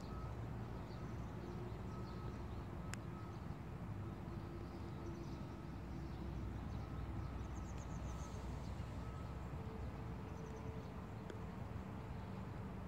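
Outdoor field ambience: a steady low rumble with faint, scattered bird chirps, and a single sharp click about three seconds in.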